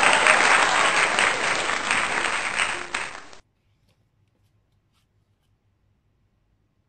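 Applause sound effect of a crowd clapping, which cuts off suddenly about three and a half seconds in and leaves near silence.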